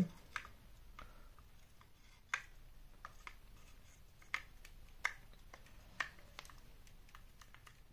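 Plastic of an Audio-Technica ATH-MSR7 headphone being flexed by hand: a series of faint clicks and light creaks, roughly one a second. Its joints are freshly greased with thick damping grease, and the squeak is better but not completely gone.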